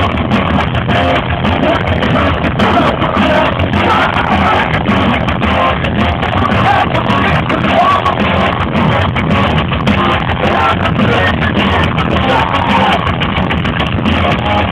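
Thrash metal band playing live with distorted electric guitars and drums, loud and dense with no let-up, heard through a phone's microphone in the crowd.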